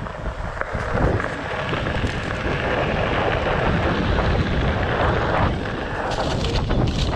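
Wind buffeting the microphone over the rolling of a Onewheel XR's tyre on gravel: a steady rough rumble, with a few sharper clicks near the end.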